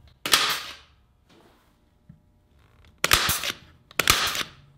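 Porter-Cable pneumatic stapler firing 3/8-inch staples into a treated 2x4: three sharp shots, each trailing off in a brief hiss. The first comes shortly after the start; the other two come about a second apart near the end.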